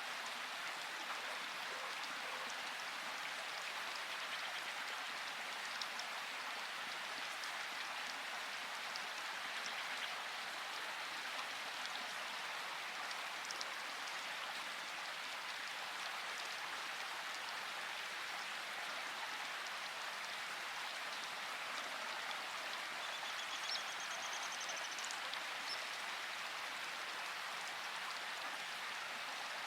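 Steady rain falling, an even hiss with drops pattering on surfaces.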